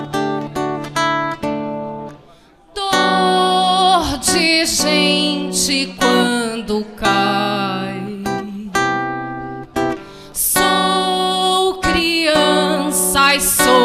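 Acoustic guitar strummed, joined from about three seconds in by a voice singing a held, wavering melody over the chords.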